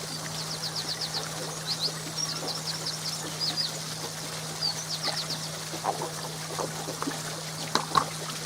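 Water pouring and trickling steadily through a koi pond filter box, over a steady low hum. A small bird sings a fast run of short, high chirps in the first half, and a few light knocks come near the end.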